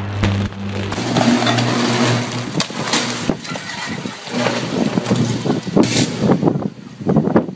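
Electric arcing from short-circuited power lines: a steady buzzing hum, first from an overhead line, then from a downed live line arcing on a wet street, broken by sharp cracks about three and six seconds in and ending in irregular crackling.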